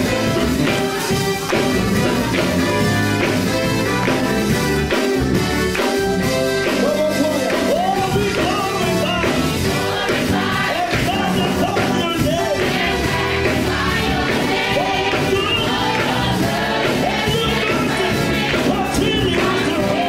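Gospel choir of young voices singing with band accompaniment and hand clapping; the voices come in over the band about six seconds in.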